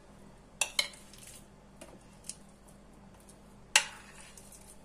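Metal spoon clinking against a glass bowl while sticky date mixture is scraped out: two quick clinks about half a second in, a few faint taps, then one sharper clink about three-quarters of the way through.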